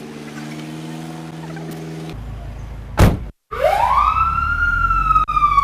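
A steady low hum, then a sharp loud bang about three seconds in, after which a rescue vehicle's siren starts up in a wail that rises quickly and then slowly falls.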